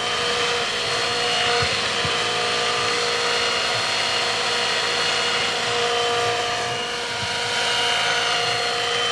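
Radio-controlled model helicopter in flight: a steady, high whine from its motor and spinning rotor blades over a rushing noise, the pitch drifting slightly up and down.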